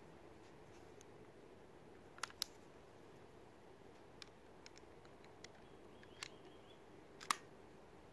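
Small sharp metallic clicks from handling an Umarex Beretta 92FS CO2 pellet pistol as its rotary pellet magazine is fitted: a quick pair of clicks, several lighter ticks, and one louder snap near the end.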